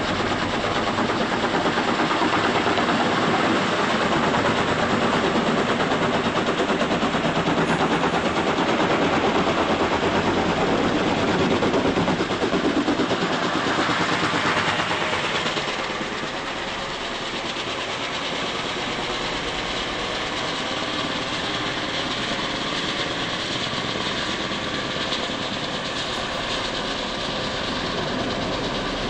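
Logging helicopter flying overhead with a load on a long line, its rotors beating steadily. The sound drops a little about halfway through and then holds.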